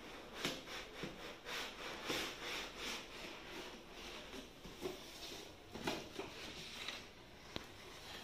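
Moulded paper-pulp packaging tray scraping and rubbing against the cardboard laptop box as it is slid out: a run of rasping strokes, about two or three a second, for the first three seconds, then softer rubbing with a few sharper bumps.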